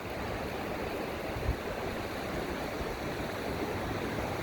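Steady outdoor rushing noise, even and unbroken, with one brief low bump about one and a half seconds in.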